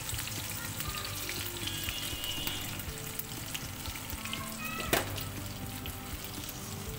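Battered chicken pakoras deep-frying in hot oil: a steady, dense crackling sizzle, with one sharp click about five seconds in.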